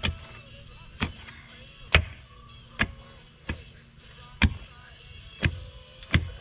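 A pick mattock being swung into soil to dig a post hole, striking the ground about once a second, eight blows in all.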